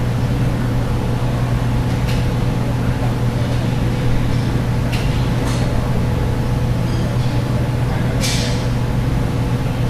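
A steady low machine hum, with a few light metal clicks and a short scrape as steel springs and brake parts are handled and fitted.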